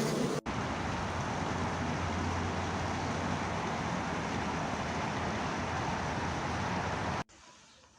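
Steady rushing noise with a low rumble under it, cutting in sharply just under half a second in and stopping abruptly about seven seconds in.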